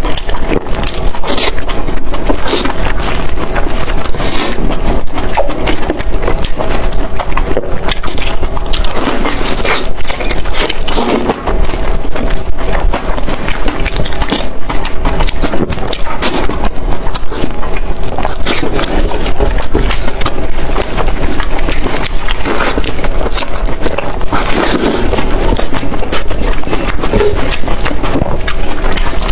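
Close-miked eating sounds: chewing, with many quick wet clicks and smacks going on without a break.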